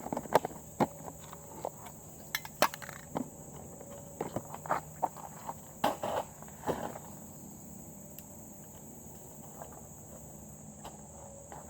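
Scattered light clicks and knocks of gear and an ammunition box being handled, thinning out after about seven seconds, over a steady high-pitched drone of insects.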